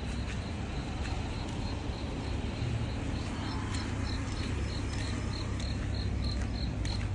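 Crickets chirping in an even rhythm, about three high chirps a second, clearest in the second half, over a steady low rumble.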